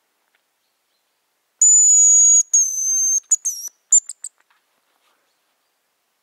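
Hazel grouse decoy whistle blown in the bird's song: two long, very high, thin held notes, the second a little lower, then several short notes and a brief quick trill.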